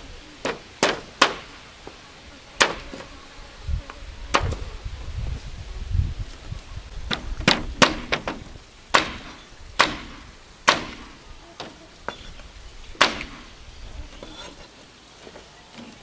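A run of sharp, irregular tool strikes, roughly one a second and uneven in strength, some with a brief ringing tail.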